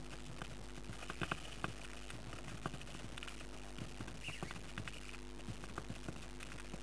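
A budgerigar moving about in its nest box among the chicks: scattered light scratches and taps of claws and beak, with a few faint high chirps, over a steady electrical hum.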